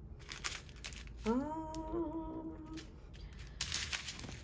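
A woman humming one short tune-like phrase, sliding up into a note and holding it for about a second and a half. Light clicks of handling before it, and a crinkling rustle of plastic bead bags starting near the end.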